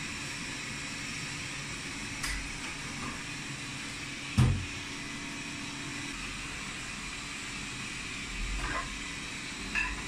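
Dishes clinking as they are handled and set into a dishwasher rack, with one dull knock about halfway through and short ringing clinks near the end, over a steady hiss.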